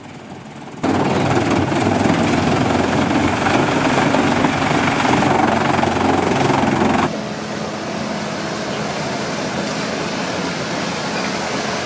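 Heavy machinery running with a loud, even noise that starts abruptly about a second in, then cuts abruptly to a quieter, different machine sound about seven seconds in.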